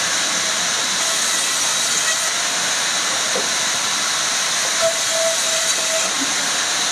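Steady, loud hiss with no rhythm or pulsing, and a faint held tone briefly about five seconds in.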